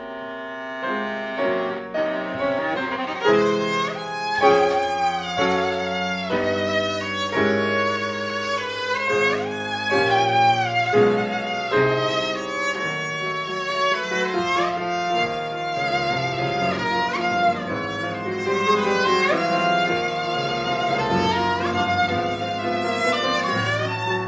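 Viola and grand piano playing together: the viola plays a bowed melody with vibrato over a busy piano accompaniment.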